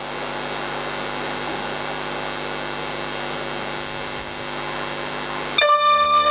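Horror film trailer sound design: a steady hissing drone, then about five and a half seconds in a sudden loud held chord of many sustained tones.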